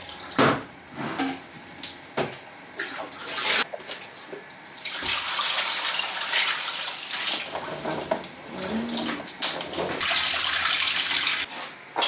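Water running and splashing in spells, with scattered knocks and clatters of hard objects.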